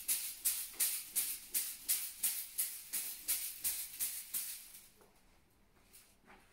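Two bamboo-stick massage whisks held together as one, beating on a person's back in a fast, even rhythm of about five strokes a second, stopping about four and a half seconds in.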